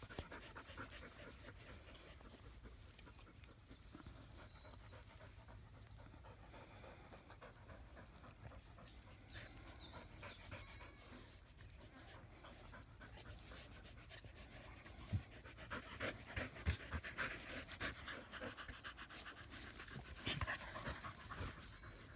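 Australian Shepherd panting in quick, irregular breaths, loudest over the last several seconds. A bird gives a short falling call a couple of times.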